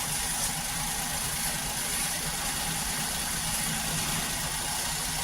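Maruti Suzuki WagonR's three-cylinder K-series petrol engine idling steadily with no hunting, running on all three cylinders now that the misfire has been cured by a new ignition coil.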